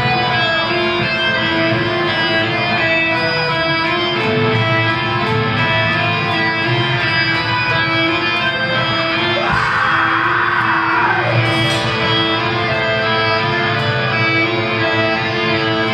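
Black metal band playing live through a club PA: distorted electric guitars holding long melodic notes over a dense low end, with a brief noisy burst about ten seconds in.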